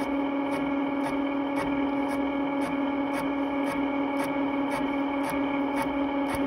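Valve-seat cutting machine spinning a radius cutter into the aluminum chamber around a valve seat, cutting away the sharp ridge of a sunken seat to unshroud the valve. A steady pitched whine with a light tick about twice a second.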